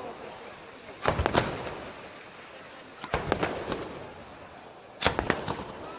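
Aerial firework shells bursting: three volleys of several sharp bangs in quick succession, about two seconds apart, each fading out in a rumbling echo.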